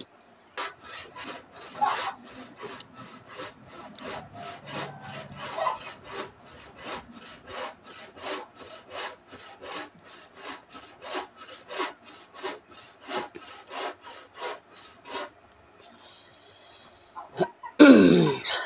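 Hand saw cutting through wood in steady back-and-forth strokes, about two or three a second, stopping near the end. Shortly after, one loud cough.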